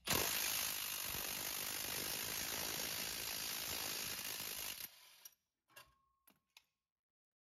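Cordless impact driver running in a continuous rattle for about five seconds as it turns a Greenlee slug-buster knockout punch's draw stud, pulling the punch through the sheet-metal electrical box to cut a 3/4-inch knockout. It stops abruptly, followed by a few faint clicks as the punch is handled.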